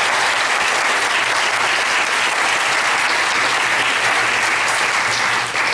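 Audience in a lecture hall applauding steadily, a dense sustained clapping.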